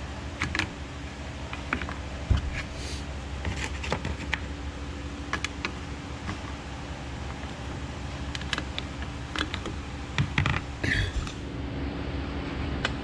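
Scattered clicks, taps and scrapes of a metal hook or rod and a fuel filter against the plastic fuel tank of a Stihl 028 chainsaw, as the new filter is worked down into the tank through the filler neck, over a steady background hum.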